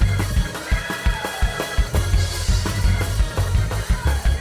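Live gospel church band playing an up-tempo praise break: rapid drum-kit hits over a heavy bass line, with held chords above.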